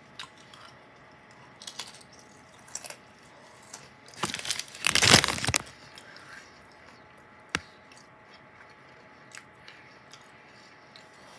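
Close-up crunching and crinkling while eating whole grain Wheat Thins crackers with cheese: scattered small crackles, then one loud crunching, crinkling stretch about four seconds in lasting a second or so, and a single sharp click later on.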